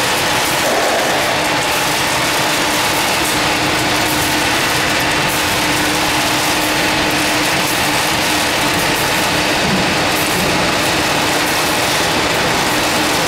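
Industrial continuous nut fryer running: a steady mechanical clatter with a faint steady hum, unchanging throughout.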